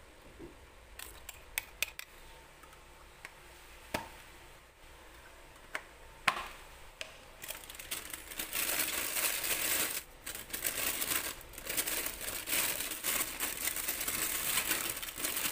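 A few scattered clicks and taps of plastic cups and lids, then, from about halfway through, thin clear plastic bags crinkling continuously as the cups are slipped into them.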